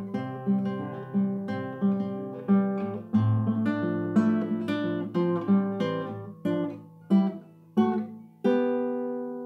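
End-credits music on acoustic guitar: plucked chords at an even pace that slows near the end, closing on a last chord left ringing and fading.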